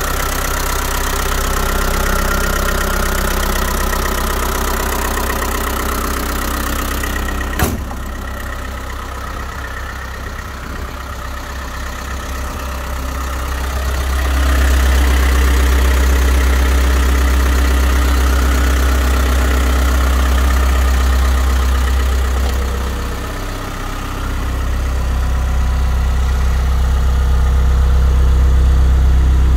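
Toyota Land Cruiser BJ43's 3.0-litre B four-cylinder diesel idling steadily, with a single sharp click about eight seconds in. The idle grows louder about halfway through.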